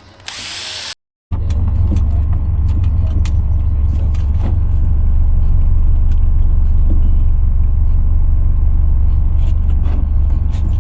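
Boat motor running steadily underway, a loud, even low rumble. It begins after a short burst of other noise that cuts off about a second in.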